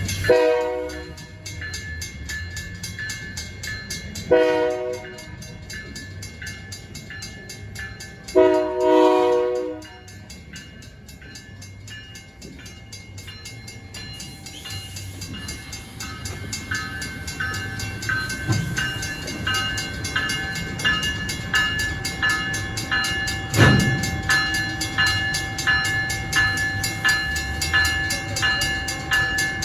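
Diesel locomotive horn sounding a long, a short and a long blast, in the pattern of a grade-crossing signal. After that the train runs on more quietly, with a high ringing repeated about once a second and a single sharp knock.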